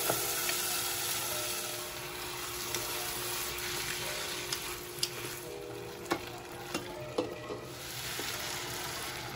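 Soaked mung beans sizzling in hot oil with sautéed pork and onion in a pot, stirred with a wooden spatula that knocks against the pot several times. Water is poured in near the end.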